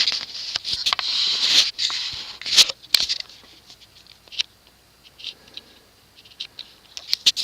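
Handling noise: rustling and scraping for about the first two seconds with a few sharp clicks, then scattered light clicks and taps.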